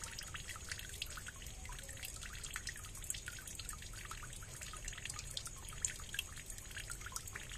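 Water in a small rocky ditch dripping and trickling faintly, in many small irregular drips.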